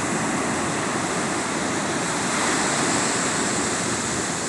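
Ocean surf breaking and washing up a sandy beach, a steady rushing that swells a little about halfway through.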